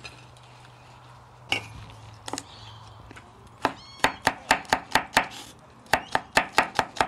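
Chinese cleaver chopping spring onion on a bamboo cutting board: a couple of single knocks, then from about three and a half seconds in a quick run of sharp knocks, about four to five a second, with a short pause midway.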